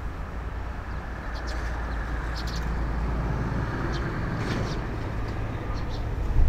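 Airbus A330-200 twin-jet airliner landing, its engines a low steady rumble that slowly grows louder. Short bird chirps come several times over it.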